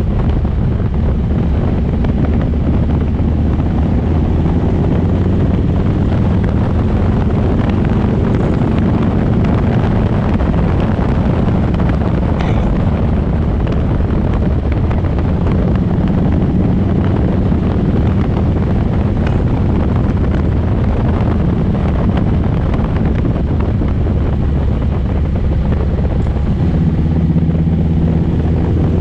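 Cruiser motorcycle engine running steadily at road speed while riding, with wind rushing over the microphone.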